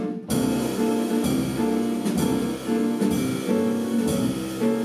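Instrumental jazz band music: chords played over a drum kit with a steady beat.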